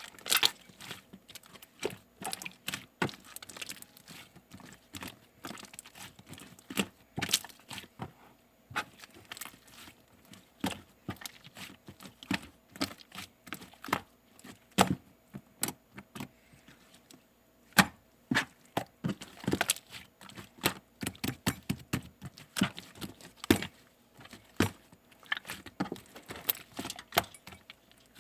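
Slime being squeezed and poked by hand, making many irregular sharp clicks and pops.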